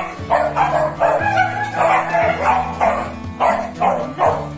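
Several dogs barking and yipping in quick, repeated bursts as they greet their owner, over background music with steady low notes.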